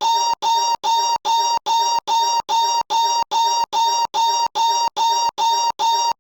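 A short high-pitched novelty noise looped back to back, the identical clip repeating about two and a half times a second with a brief silent gap between each repeat.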